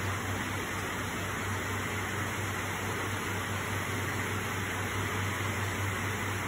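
Heavy tropical-storm rain falling steadily, a continuous even hiss, with a steady low hum underneath.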